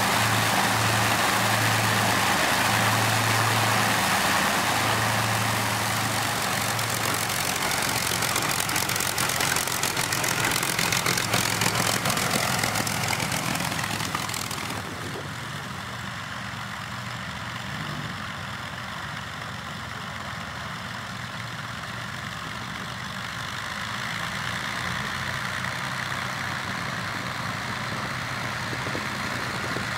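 Twin Rolls-Royce Merlin V12 engines of a de Havilland Mosquito running close by, loud and dense with a slow pulsing beat in the low hum. About halfway through it drops to a quieter, duller, more distant engine rumble, which swells a little near the end.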